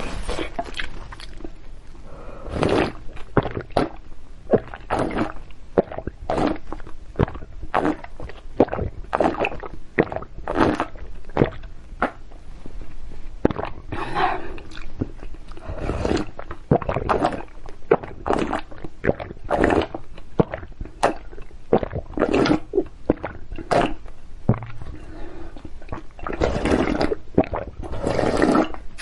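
Close-miked eating of hot and sour noodles in broth: many short wet slurps and chewing sounds in quick, irregular succession. Near the end, longer sips and swallows as the broth is drunk straight from the tipped bowl.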